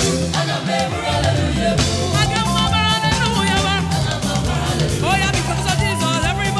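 Live gospel praise music: several voices singing over a drum kit and a full band, loud and steady.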